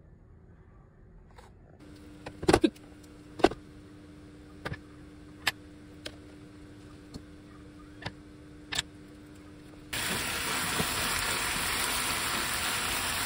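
A few sharp taps and knocks of kitchen utensils, then, suddenly about ten seconds in, a steady sizzle: bulgogi beef with carrot and onion frying in a pan while stirred with chopsticks.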